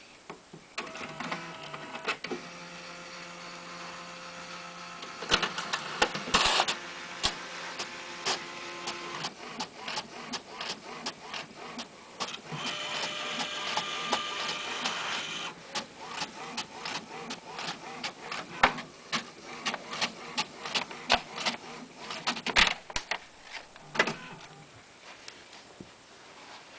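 Desktop printer printing a page: its motors whine in steady tones for stretches of several seconds, broken by many sharp clicks and taps as the paper feeds out and a cat paws at the emerging sheet.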